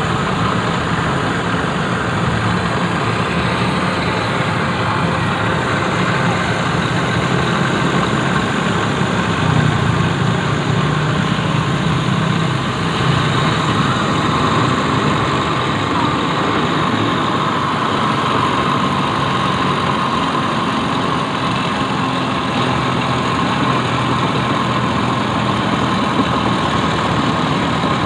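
A motor or small engine running steadily, a constant hum that does not change.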